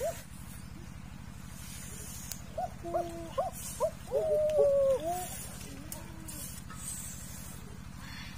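A bird calling about two and a half seconds in: a run of short rising-and-falling whistled notes, then one longer, slightly falling note. A steady low hum runs underneath.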